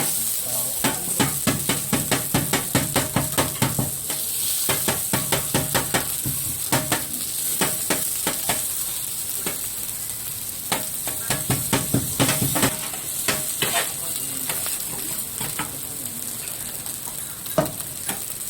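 Fried rice sizzling on an iron teppanyaki griddle, with runs of quick metal spatula strikes and scrapes against the plate, several a second, coming in bursts, and one louder clack near the end.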